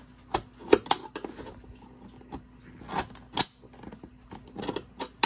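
Screwdriver tip clicking and scraping against the metal spring-wire retaining clips and chrome ring of a 1966 VW Beetle headlight assembly as the clips are pressed down to pop them out: a series of irregular sharp metal clicks.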